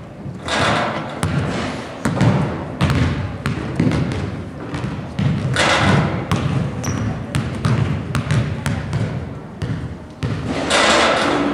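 A basketball dribbled repeatedly on a hardwood gym floor, each bounce a sharp thud echoing in the hall, as a boy readies and takes free throws. Three short bursts of rustling noise come about half a second in, around six seconds and near the end.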